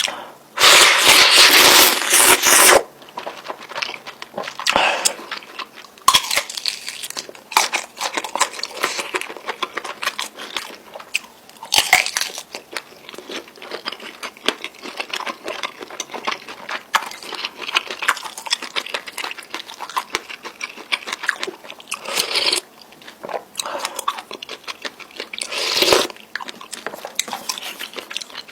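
Close-miked eating of spicy instant noodles with fried egg and sausage: chewing, biting and wet mouth sounds made up of many small clicks and short bursts. A loud, dense noisy stretch comes about a second in and lasts about two seconds.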